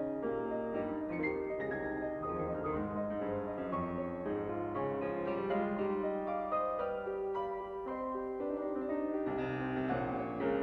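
Background piano music: overlapping held notes and chords.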